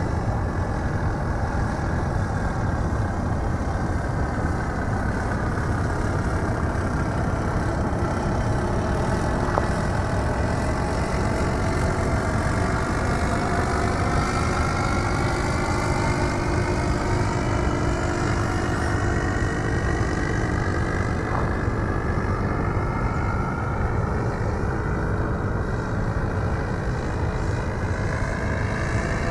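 Radio-controlled model Cub aircraft's motor and propeller droning in flight, its pitch sinking slowly and then rising again from about halfway through, over a steady low rumble.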